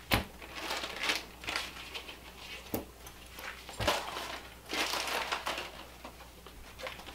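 A clear plastic bag crinkling as a nylon rifle sling is pulled out of it and laid out on a table, with irregular rustling and a few sharp clicks.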